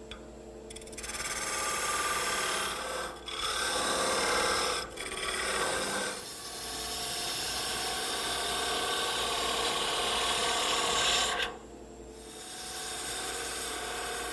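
Lathe gouge cutting into a spinning wooden bat as the head is rounded over: a steady shaving hiss in several passes. The cutting breaks off briefly about three and five seconds in, and for about a second near the twelve-second mark.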